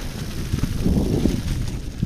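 Wind buffeting the action camera's microphone as a mountain bike rolls along a leaf-covered dirt trail, with tyre noise and the rattle of the bike. The low rumble swells briefly about a second in.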